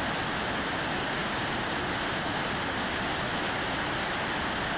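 Christine Falls, a mountain waterfall, rushing steadily: an even, unbroken sound of falling and churning water.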